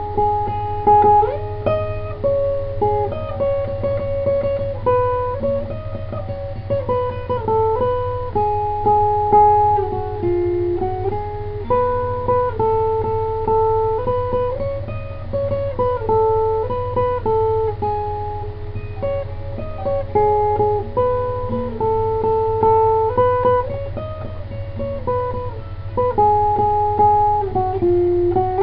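Acoustic guitar playing a slow melody of picked, ringing single notes, each note held before stepping to the next, with some strummed chords. A steady low hum runs underneath.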